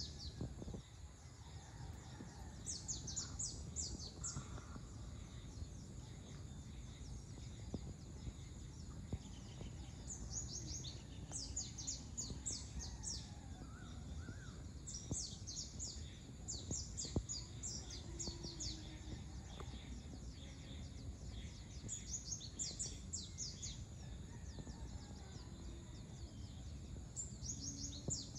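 Birds chirping in repeated bouts of quick, high, short notes, each bout lasting a second or two, over a steady low background rumble.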